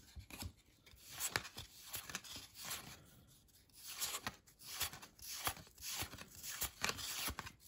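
Trading cards and a pack wrapper being handled up close: irregular soft rustles, scrapes and small clicks of cardstock and wrapper.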